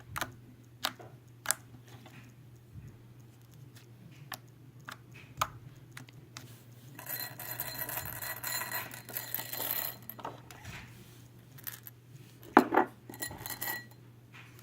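Creamy, fluffy slime being worked by hand, making sharp wet pops and clicks, with a dense run of crackling from about seven to ten seconds in and the loudest pop near the end. A steady low hum lies underneath.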